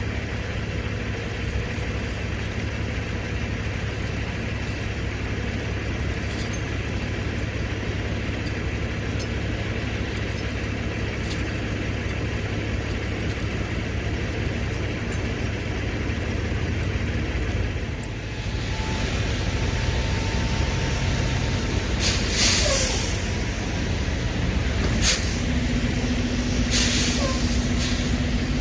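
Semi-truck diesel engine running with a steady low drone, its note changing about two-thirds of the way in. Near the end come three short, sharp hisses of air from the truck's air brake system.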